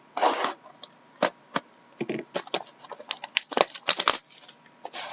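Trading cards and their packaging handled at close range: a brief rustle of wrapper or packaging near the start, then a run of quick clicks, taps and rustles as the cards are handled.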